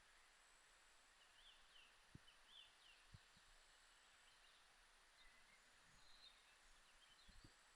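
Near silence: faint outdoor ambience with a few soft, short, high chirps scattered throughout, a faint steady high tone and a couple of soft low knocks.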